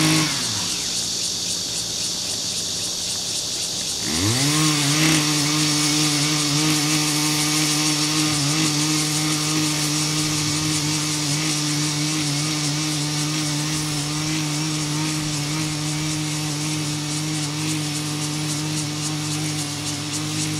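Small engine of a CY50 walk-behind power tiller running with a high buzz as its rotary tines ridge the soil. It slows at the start, picks back up about four seconds in, and then runs steadily.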